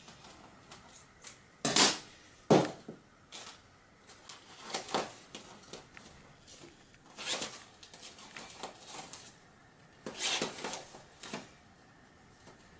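Ripstop nylon fabric rustling and crinkling in short irregular bursts as it is bundled up and tied with cotton thread, with two sharper crackles about two seconds in.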